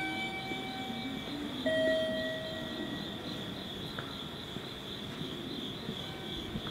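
Insects chirping steadily in a fast, even pulse. Near the start come two held electronic tones, a higher one and then a lower one.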